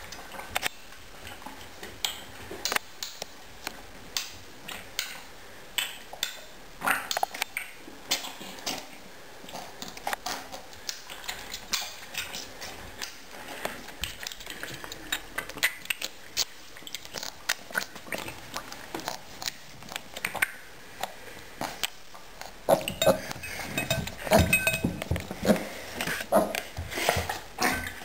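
A newborn piglet slurping milk from a shallow dish, with irregular wet smacks and small clinks against the dish, louder and busier near the end.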